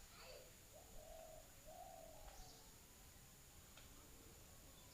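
A bird calling faintly: two low, smooth notes, a short one about a second in and a longer one right after it.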